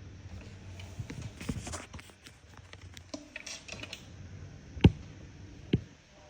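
Light scattered clicking and rustling, then two sharp clicks near the end, the first the loudest.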